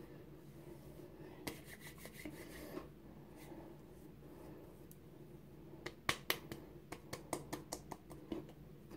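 Fingertips patting and tapping on facial skin, short light slaps: a few about a second and a half in, then a quick run of about a dozen pats from about six to eight seconds in.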